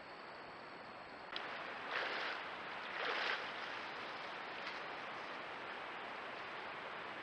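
Black bear wading out of a shallow pond, two splashes about a second apart, over a steady hiss.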